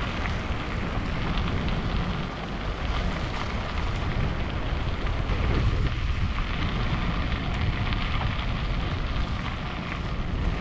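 Steady rushing noise with a fluttering low rumble: wind buffeting the microphone of a camera on a moving bicycle.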